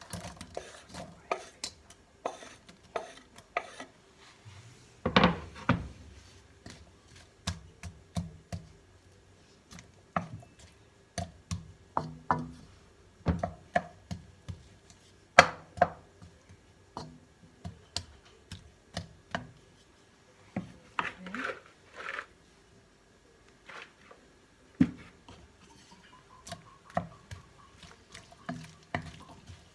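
Wooden spatula knocking and scraping against a black metal wok while diced onion is stirred in oil, with irregular sharp clacks about once or twice a second. Diced onion is tipped in off a wooden cutting board at the start.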